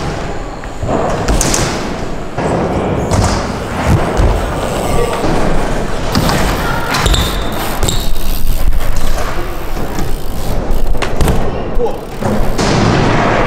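BMX bikes riding in an indoor skatepark: tyres rolling over wooden ramps and concrete, with repeated thuds and knocks from landings and hits on the ramps.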